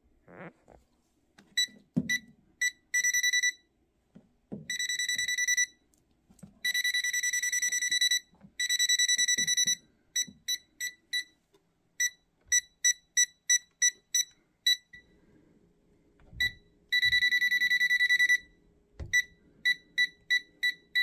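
ASTROAI MUS4KRD multimeter's piezo buzzer beeping: many short high beeps mixed with several held tones lasting half a second to a second and a half. Faint knocks of the meter being handled sound between them.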